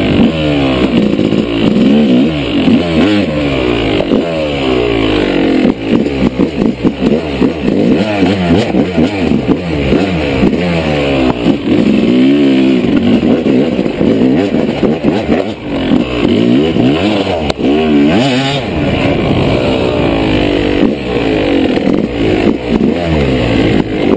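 Yamaha dirt bike engine being ridden off-road, revving up and down continuously with the throttle, its pitch rising and falling every second or two.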